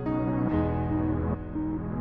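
Background music: calm ambient instrumental, sustained chords that change every half second or so.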